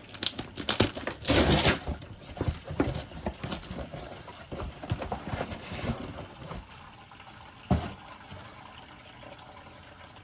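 Irregular clicks, knocks and clanks of tools and metal parts being handled while working on a water heater's gas control valve. There is a short, louder rush of noise about a second and a half in and a single knock near the end.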